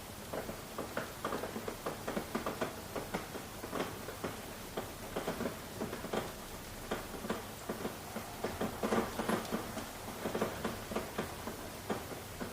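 Rain falling, with heavy irregular drops tapping and pattering on a hard surface, several a second over a soft steady hiss.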